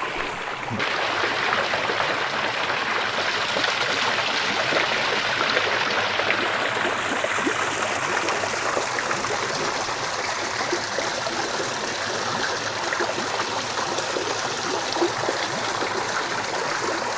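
Water from a small artificial rock-wall waterfall splashing steadily into a garden pond, getting a little louder about a second in.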